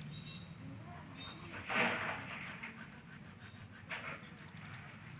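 Little chicks peeping in short runs of quick high chirps, with a brief loud noisy burst about two seconds in.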